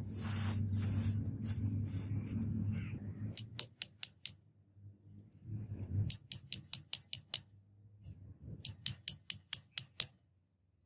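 Flat screwdriver tip picking and scraping rust out of the rust-caked switch compartment of an angle grinder housing: quick sharp clicks in three runs, about six to eight a second. A low steady hum fills the first three seconds.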